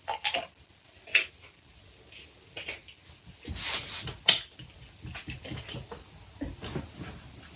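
Scattered short handling noises of a plastic PET drink bottle at a table, with sharp clicks and knocks. A longer rough, breathy-sounding stretch comes a little past the middle.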